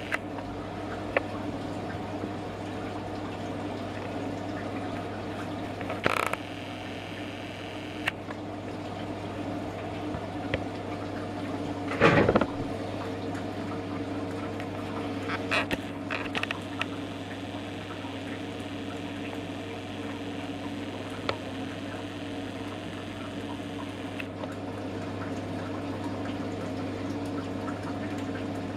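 A homemade pot still running an apple brandy batch: a steady hum with liquid trickling, and a few short knocks about a quarter and halfway through.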